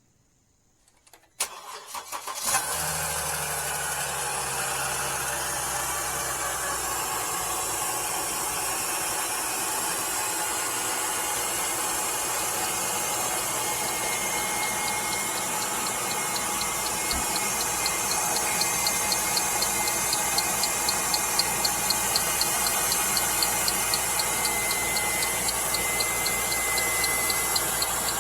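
Mercedes-Benz GLK engine cranked by the starter on a cold winter start, catching about two seconds in and settling into a steady idle. About halfway through a light, regular ticking comes in over the idle, three or four ticks a second, which the owner suspects may be knocking.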